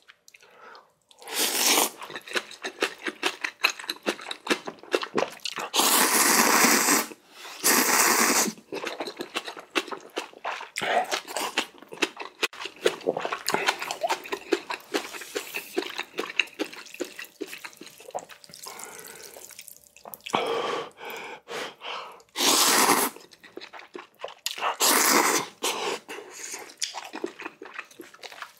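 Spicy ramen noodles being slurped in several loud pulls of about a second each, with wet chewing and lip smacks in between.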